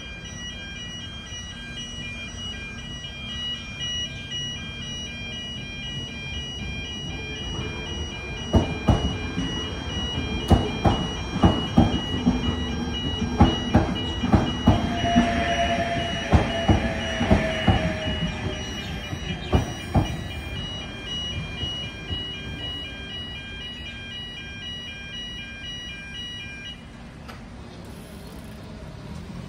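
Railway level crossing warning bells ringing in a rapid, steady pulse while an electric passenger train passes over the crossing. The wheels clack over the rail joints in a run of sharp knocks, with a brief squeal in the middle. The bells stop a few seconds before the end.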